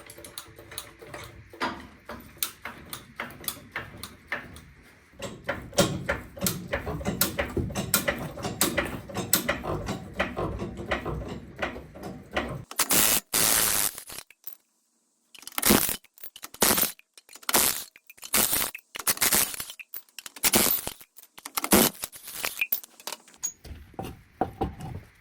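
A rapid run of clicks, knocks and clanks of metal tools and parts, followed by several louder noisy bursts that start and stop abruptly, with sudden silent gaps between them.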